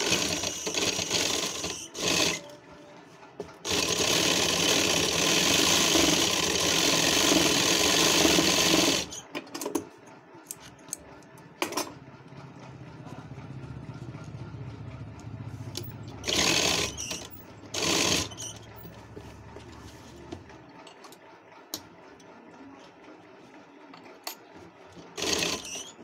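Sewing machine stitching kurta fabric in runs: a couple of short runs at the start, one long steady run of about five seconds, then a few brief bursts as the cloth is turned and guided. A low steady hum sounds between the later bursts.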